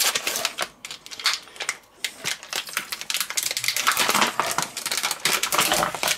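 Thin plastic packaging crackling and crinkling as a sealed tray of sliced cheese is cut open with a knife and its lid film peeled back: a dense, irregular run of small clicks and rustles.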